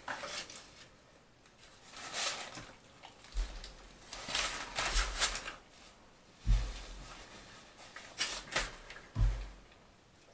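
Eating sounds from a kebab meal: irregular bites, chewing and rustling, with a few dull bumps.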